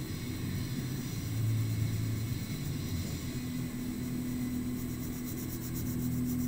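A steady low hum with an even hiss over it.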